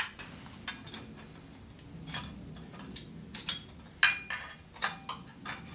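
Light metallic clinks and taps as a split exhaust collar and its clamp are worked loose by hand off a motorcycle's steel exhaust header pipe: a few scattered clicks, the sharpest about four seconds in.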